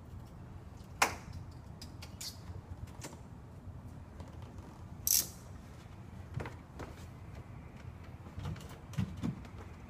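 Scattered clicks and taps of tools and film being handled during window-film installation, the sharpest about a second in, with a short hiss about five seconds in and a few softer knocks near the end, over a steady low hum.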